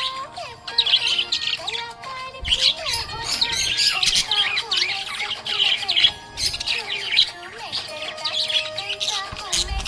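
Budgerigars chirping and warbling, several birds overlapping in a busy, continuous twitter.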